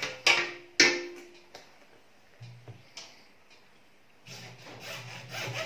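Two sharp knocks in the first second, the second ringing briefly, then a hacksaw starts cutting through PVC conduit about four seconds in, with quick back-and-forth strokes.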